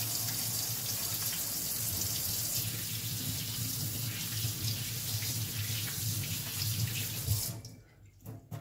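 Kitchen sink tap running in a steady rush as hands are washed under it, then shut off near the end.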